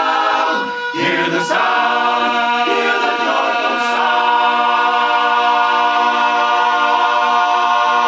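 Barbershop chorus singing a cappella in close harmony, closing the song: a few short moving phrases, then a long sustained final chord held steadily through the rest.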